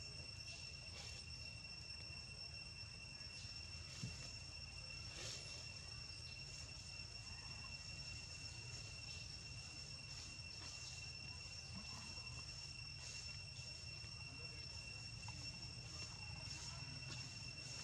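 Steady high-pitched insect drone, one unbroken held tone, over a low steady rumble, with a single light knock about four seconds in.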